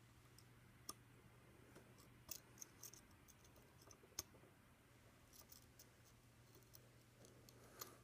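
Faint, scattered clicks and scrapes of a homemade quick pick and tension tool working the pins of a 5-pin dimple lock cylinder on a bicycle U-lock, as it is single-pin picked.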